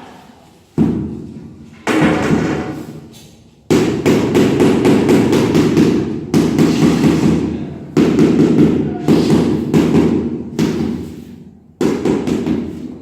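Sand-and-cement render being worked onto a wall with a trowel: a series of sudden heavy thuds, each fading away over a second or so, with quick repeated strokes in between.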